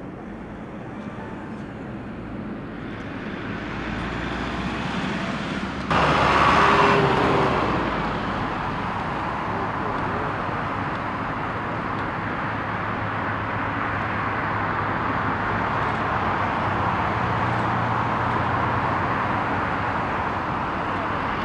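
Boeing 777-200 jet engines running: a steady rushing noise that builds over the first few seconds. About six seconds in there is a sudden louder burst lasting about two seconds, then the noise settles and holds.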